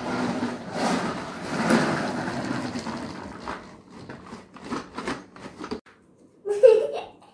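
Plastic wheels of a child's ride-on toy car rolling over a wooden floor, a rumbling noise for about three seconds, then a few scattered knocks. A child's voice near the end.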